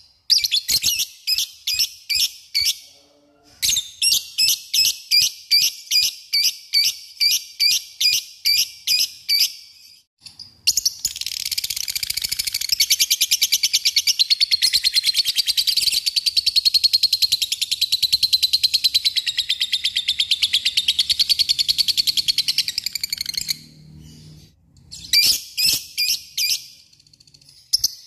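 Lovebird calling: sharp, high repeated chirps about three to four a second, then, from about ten seconds in, a long unbroken rapid chattering trill lasting some thirteen seconds, the long 'ngekek' call that lovebird keepers prize. Near the end it goes back to sharp chirps.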